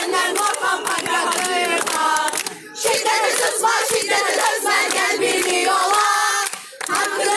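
A crowd of marchers chanting slogans together, many overlapping voices, with two short breaks between phrases.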